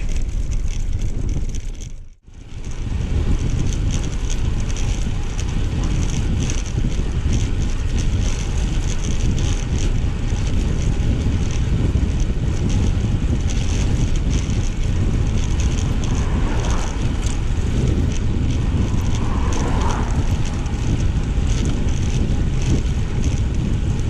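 Steady wind rumble on the microphone, mixed with the jolting road noise of a road bike's tyres running over interlocking paving stones. The sound drops out briefly about two seconds in.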